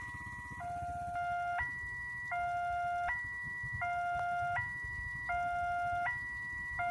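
Railway level-crossing warning alarm sounding a two-tone electronic high-low chime that alternates about every three-quarters of a second, with a low rumble of idling motorbike engines underneath.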